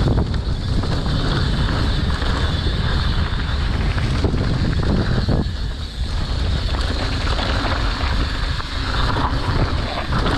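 Wind buffeting the microphone and a mountain bike running fast down a dirt trail, with many short knocks and rattles from the bike throughout.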